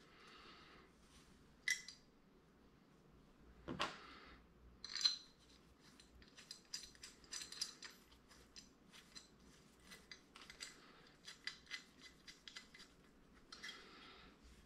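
Light clicks and metallic taps as a Ford flathead V8 carburetor body is handled and turned over, with one louder knock about four seconds in and a run of small rapid ticks after it.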